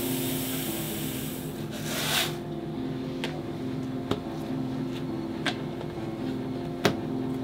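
Sesame seeds pouring into a glass jar with a steady hiss that stops about two seconds in, followed by several small clicks and taps as plastic lids are pressed onto glass jars.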